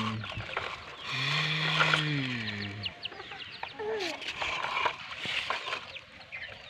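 A man's voice held on one drawn-out note for about two seconds, then birds chirping quietly in the background with many quick short chirps.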